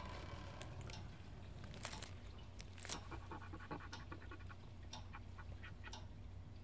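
Faint, quick scratching strokes of a drawing tool on paper, a string of short irregular scrapes and ticks over a low steady hum.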